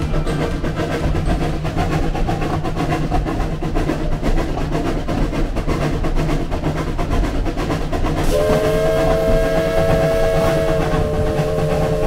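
Narrow-gauge steam locomotive running along the line. Near the end it sounds a chord whistle of three notes held steady for about four seconds.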